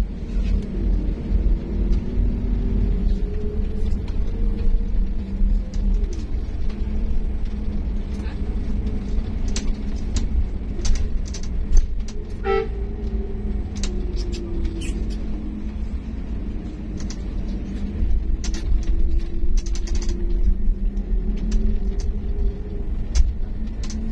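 Diesel engine of an automatic intercity coach heard from inside the cabin as the bus moves slowly in traffic: a steady low rumble whose pitch rises and falls gently, with scattered clicks and rattles. A short horn toot about halfway through.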